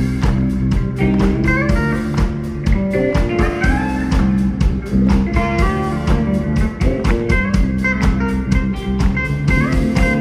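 Blues music with guitar over a steady drum beat.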